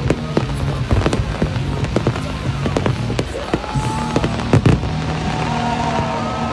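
Fireworks bursting in quick succession, a rapid series of sharp bangs with the two loudest about four and a half seconds in, over music.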